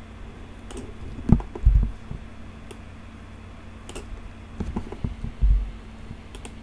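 Scattered clicks of a computer mouse and keyboard at a desk, with two dull low thumps among them, over a faint steady electrical hum.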